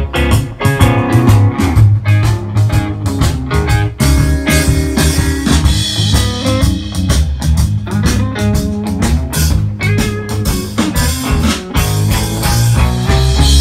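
Rock-blues music with guitar, bass and drums playing through a pair of Akai SW-A3 three-way speakers.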